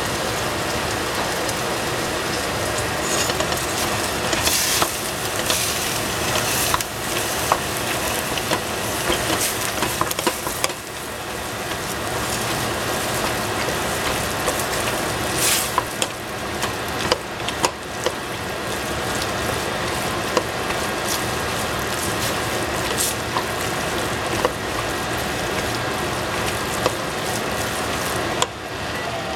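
Ground meat, onion and Korean black bean paste frying in a stainless steel pot, sizzling steadily while a wooden spoon stirs and scrapes through it, with scattered sharp knocks of the spoon against the pot.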